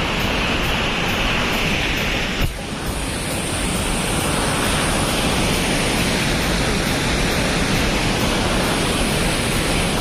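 Waterfall rushing: a steady, loud noise of falling water, broken once by a short dip about two and a half seconds in.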